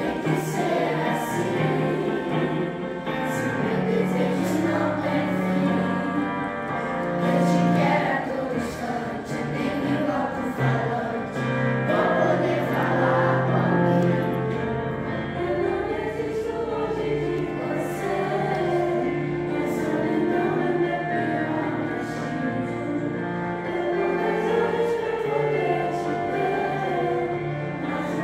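Youth choir singing a song in several voices, accompanied by an electronic keyboard.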